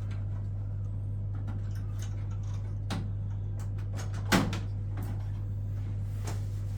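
Steady low hum with a few short knocks and clicks over it; the loudest knock comes about four and a half seconds in.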